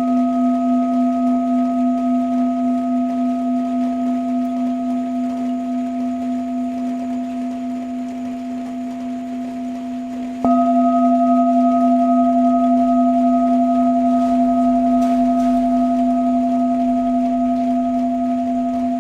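Tibetan singing bowl ringing on with a slow wavering pulse and gradually fading, then struck again about ten seconds in, after which the same tones ring out loud and begin to fade again.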